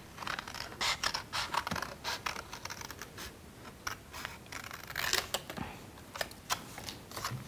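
Scissors cutting through paper: a run of short, irregular snips, some in quick clusters.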